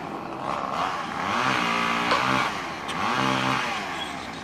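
An engine running, its pitch rising and falling in repeated cycles about every second and a half.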